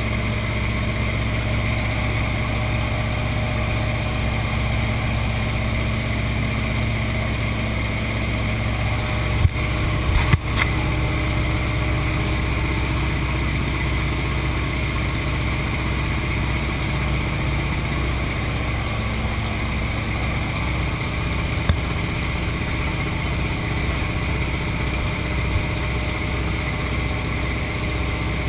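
Steady engine drone of a jump aircraft, heard from inside its cabin. A few short knocks come about ten seconds in, and one more click a little past twenty seconds.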